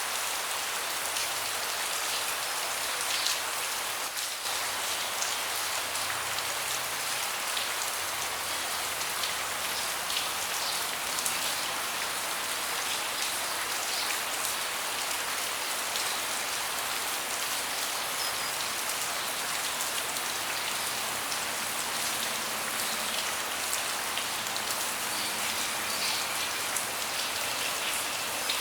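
Steady rain falling on a deck: a dense, even hiss with scattered small ticks of individual drops.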